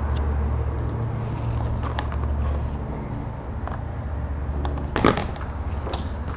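Hands working tape and scissors on a foam aileron: small clicks and rustles, with a sharp click of the scissors about five seconds in. A low steady hum runs under the first three seconds.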